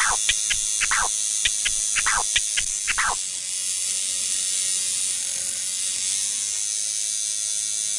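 Sound effects of an animated logo intro: quick clicks and falling, scratch-like sweeps for about three seconds, then a steady high hiss.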